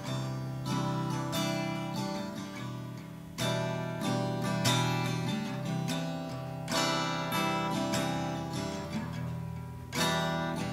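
Solo acoustic guitar strummed in a steady rhythm, with a heavier strum and chord change about every three seconds.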